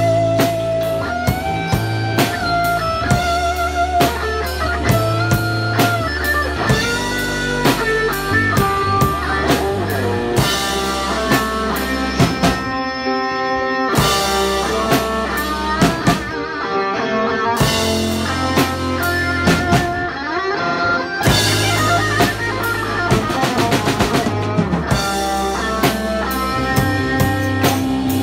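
Live instrumental rock: an electric guitar plays the melody over a drum kit with clear acrylic shells. The cymbals drop out for short stretches a few times.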